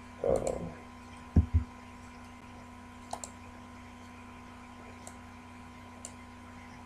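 Computer mouse clicks, a few short sharp ones spread out, with two dull low thumps close together about a second and a half in as the loudest sound, over a faint steady electrical hum.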